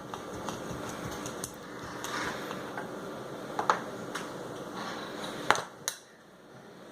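Steady room noise with a few scattered light clicks and taps, about five in all, the loudest a little after the middle.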